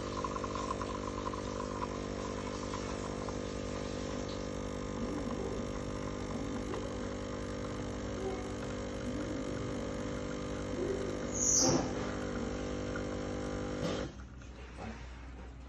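De'Longhi Dedica EC685 espresso machine's vibratory pump humming steadily while it pulls a double espresso shot, then shutting off about a second and a half before the end as the shot finishes. Near the end there is one brief, sharp, high-pitched sound.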